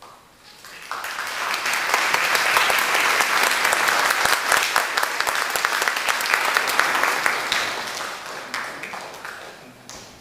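Audience applauding, swelling up over the first second or two, holding steady, then dying away over the last couple of seconds.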